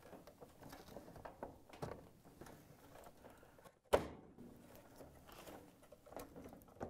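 Faint rustling and small plastic clicks of wire-harness connectors and wires being worked off a dryer timer, with one sharp click about four seconds in.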